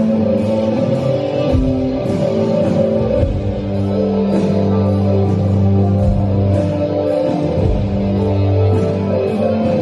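Live band music: held chords over a low, steady bass, with a faint regular tick keeping time.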